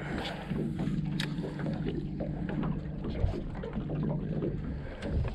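A small boat's electric trolling motor running with a steady low hum that stops about five seconds in, over wind and light water noise.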